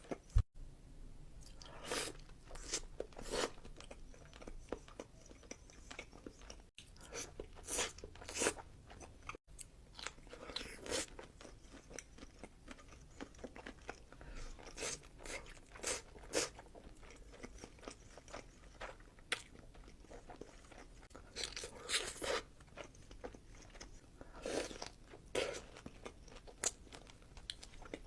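Close-miked eating of seafood boil food: irregular crunchy bites and wet chewing, with a few abrupt momentary cuts where one clip gives way to the next.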